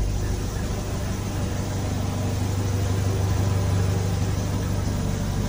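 1981 Toyota pickup's 22R 2.4-litre four-cylinder engine, fed by a Weber carburetor, idling steadily at an even pitch.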